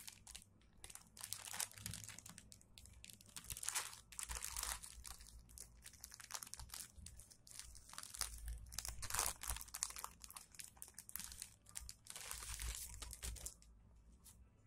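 Clear plastic packaging bag crinkling in irregular bursts as hands open it and slide a pair of football socks out. It dies down near the end.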